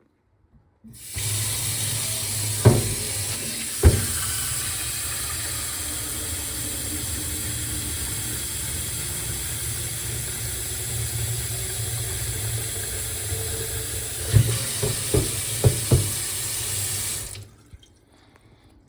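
Tap water running steadily into a humidifier's water tank, turned on about a second in and off near the end. There are a couple of knocks of the plastic tank early on and a cluster of them shortly before the water stops.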